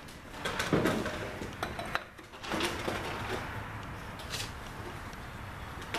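Scattered metallic clinks and knocks of a hand tool working on the oil filter canister of a 1948 Farmall H's engine, as the canister is being taken off.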